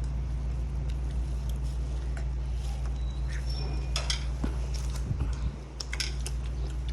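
A steady low hum with scattered small clicks and taps over it.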